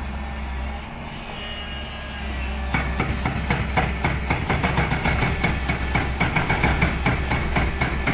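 Demolition breaker hammering: a rapid run of sharp impacts starts about three seconds in, over the steady low hum of a running engine.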